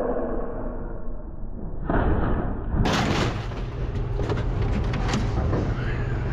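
Scrap appliances being handled and set down: a run of knocks and thuds over a steady low hum, busier in the second half.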